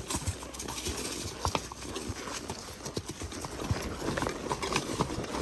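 Horse's hooves clip-clopping as the horse moves off under a rider, a steady run of irregular knocks.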